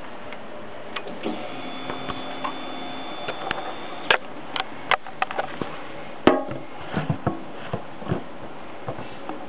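Clicks and light knocks of handling at a Suzuki GSX-R750's ignition key and dash, with the engine not running. A faint steady whine lasts about two seconds, starting about a second in, after the ignition is switched on.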